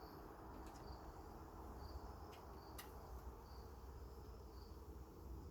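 Crickets giving short high chirps about once a second over the steady low hum of honeybees at an open hive, with a few faint clicks.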